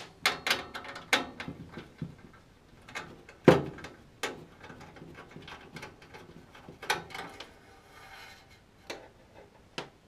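Irregular clicks and light metal knocks as the flame sensor is worked loose and pulled out of a gas furnace's burner compartment by hand; the loudest knock comes about three and a half seconds in.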